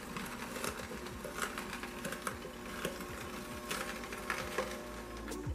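Amzchef slow masticating juicer running: a steady motor hum with frequent irregular clicks and cracks as the auger crushes pieces of carrot, bell pepper and pineapple.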